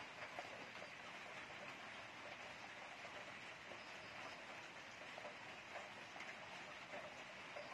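Faint, steady background hiss with a few soft ticks.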